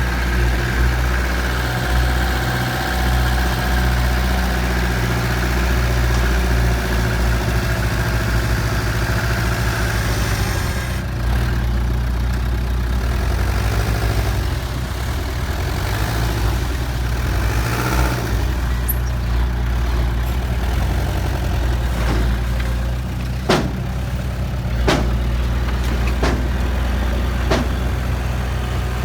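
Truck engine running steadily at a low idle, with a few sharp knocks in the last few seconds.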